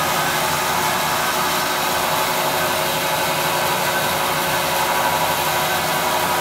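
Oliver 416D band saw running free without a cut, its motor and blade making a steady, even whir with a few faint steady tones underneath; it is running smoothly with almost no vibration.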